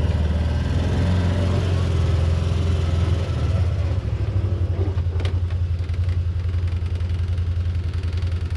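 Vehicle engine running steadily at low speed while driving over rough ground, a loud low drone, with a single knock about five seconds in.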